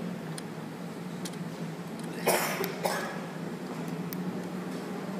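A person coughs twice, a loud cough a little over two seconds in and a shorter one about half a second later. Under it runs a steady low hum, with a few faint ticks.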